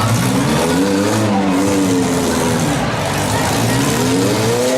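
Six-cylinder demolition derby car engines revving hard, rising and falling in pitch every second or two, with several engines running at once over a steady din.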